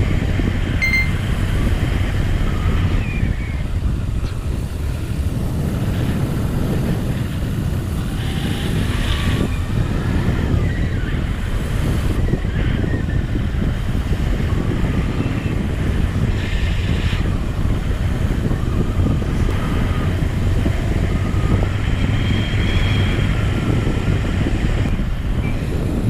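Motorcycle engine running steadily under way, mixed with wind rushing over the rider's helmet-mounted microphone.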